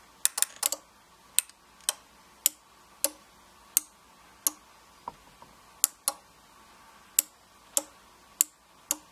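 Small relays on an 8-channel relay module clicking on and off as capacitive touch sensor inputs are touched with tweezers: a series of sharp, separate clicks about every half second, some in quick pairs.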